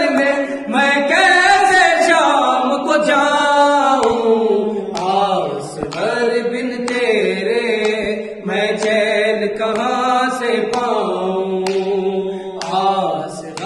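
A man's voice singing a noha, a Shia lament, unaccompanied into a microphone, in long drawn-out notes that bend and waver in pitch.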